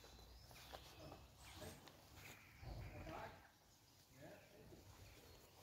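Near silence: faint outdoor ambience with a few faint bird chirps and a brief low rustle about three seconds in.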